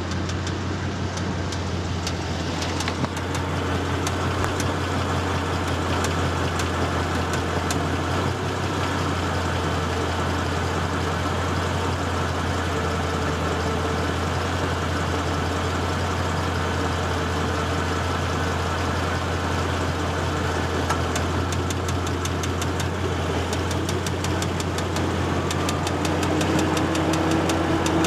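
2014 Ford Mustang GT's 5.0-litre V8 idling in neutral with a rapid ticking knock over the steady idle, the ticks growing denser in the last few seconds. The knock comes with the A/C compressor engaged and is the sign of piston wrist pin knock.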